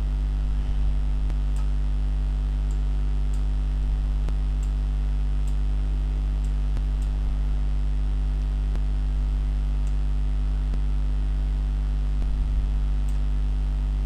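Steady electrical mains hum, a low buzz at the mains frequency and its overtones, picked up in the recording's microphone line, with a few faint ticks scattered through it.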